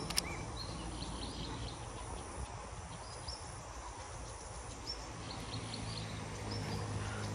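Steady outdoor insect drone, with a few short, high bird chirps about three to four seconds in.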